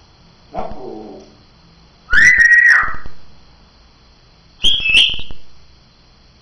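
African grey parrot whistling: a short falling call about half a second in, then two loud whistles, the first held on one pitch, the second higher.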